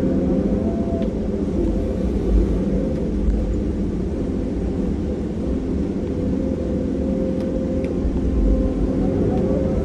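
Heavy diesel engine and hydraulics of a Cat 340 excavator running steadily, a constant low rumble with a steady hum over it and a few light knocks.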